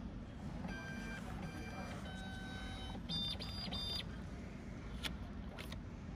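Ticket vending machine beeping while it prints and dispenses a ticket: two short beeps, a longer lower beep, then three quick higher beeps, over a steady low hum, with a couple of sharp clicks near the end.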